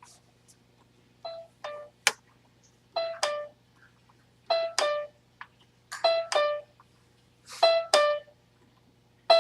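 Electronic keyboard sounding a two-note descending chime, a higher note then a lower one, repeated about every second and a half and growing louder with each repeat as the volume is turned up. A few sharp clicks fall between the chimes.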